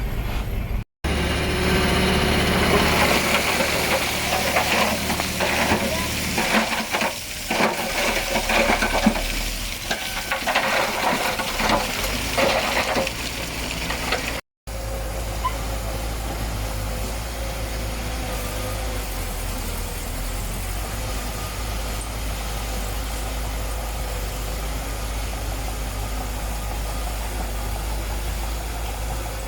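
Heavy diesel construction machinery running, with irregular clattering and rattling over the engine in the first half. After an abrupt cut about halfway, a steady low engine drone.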